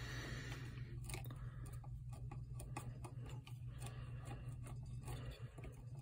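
Faint, irregular clicks and scrapes of a Leatherman Curl multitool's awl being twisted back and forth to auger a hole in a wooden 2x4, over a steady low hum.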